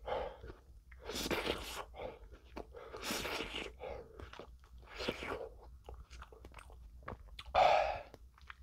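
A man blowing out hard breaths through rounded lips, about five hissing 'hoo' exhales roughly two seconds apart, to cool a mouth still burning from extremely spicy stir-fried noodles. Small mouth clicks fall between the breaths.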